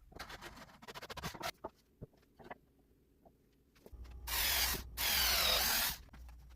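Woodworking tool sounds on wood: a quick run of clicks and taps, then scattered ticks, then two loud rasping strokes about four and five seconds in, the second lasting about a second.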